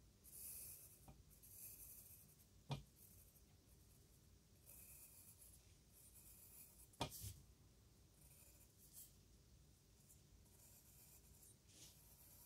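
Faint scratching of a wooden pencil on notebook paper in short repeated strokes while drawing. Two sharp clicks stand out, a little under three seconds in and again about seven seconds in.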